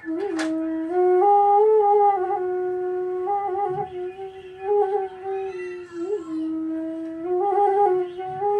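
Bansuri (Indian bamboo flute) playing a slow phrase of long held notes, moving in small steps with quick ornamental turns between them.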